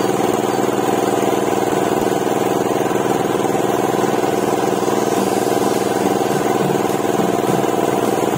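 Mahkota MPM-150 B feed pellet mill running under load, belt-driven by its 8 hp single-cylinder engine: a steady, loud engine drone with an even low rhythmic beat as pellets are pressed out.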